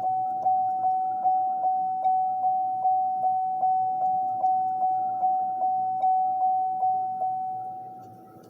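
Electronic GM-style door-ajar chime from a Matchbox toy Cadillac Escalade, through its small speaker: one high ding repeated rapidly and evenly, about two and a half times a second. It stops about seven seconds in and rings away.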